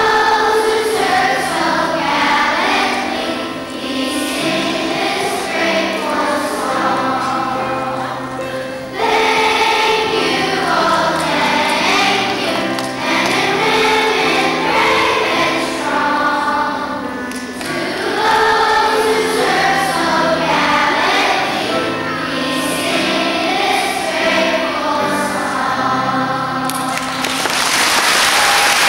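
Children's choir singing a song together. Near the end the singing stops and applause breaks out.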